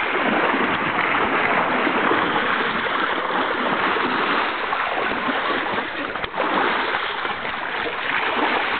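Shallow river water rushing and splashing around a wading elephant, a steady wash of water noise.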